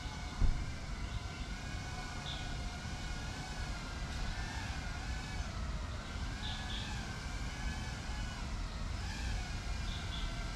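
Small FPV quadcopter's motors whining, a stack of pitches rising and falling together as the throttle changes. Wind rumbles on the microphone, with a brief thump about half a second in and a few short high chirps.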